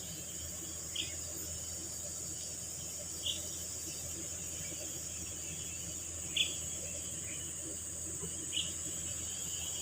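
Steady high-pitched insect drone, as of crickets, with four short, sharp chirps a couple of seconds apart.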